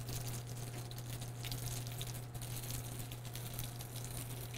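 Bacon-wrapped dates sizzling in oil in a small cast iron pan, a steady hiss with many small pops, over a constant low hum.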